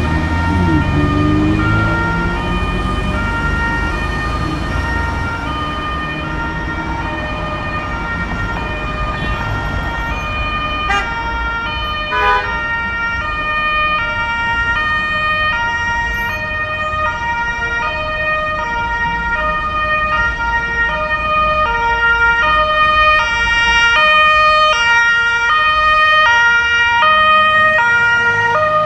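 Two-tone emergency siren of German fire-service vehicles (Martinshorn) sounding, its high and low notes alternating in a steady back-and-forth, getting louder toward the end as the vehicle comes closer. Low street-traffic rumble runs underneath.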